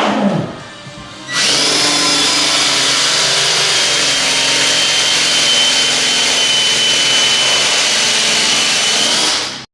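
A power tool starts about a second in and runs steadily at full speed with a thin high whine over loud hiss, then cuts off abruptly just before the end.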